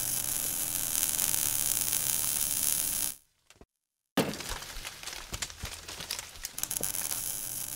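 Sound effects for an animated logo sting. A steady hissing crackle runs for about three seconds and stops. After a second of silence comes a sudden crash, followed by scattered small clicks and crackles that die away.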